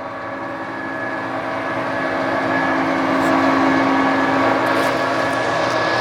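TOS SN50C engine lathe running under power, a steady gear whine over a hiss that grows louder through the first half and then holds.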